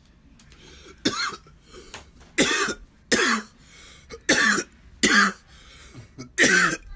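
A man coughing hard after inhaling smoke from a joint: about six harsh coughs, each short, coming roughly a second apart.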